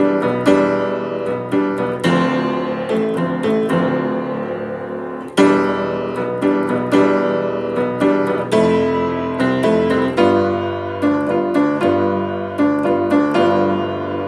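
Piano playing chords and melody notes that ring and decay, with strong accented chords about two seconds and about five seconds in.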